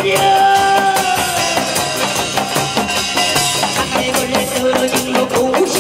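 Korean folk percussion band playing fast: small brass gongs (kkwaenggwari) clanging over buk drums and a drum kit in dense, driving strikes, with held melody notes sounding above.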